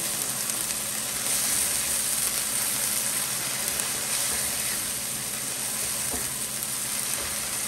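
Onions with garlic and ginger paste sizzling steadily in hot oil in a frying pan, stirred around with a silicone spatula.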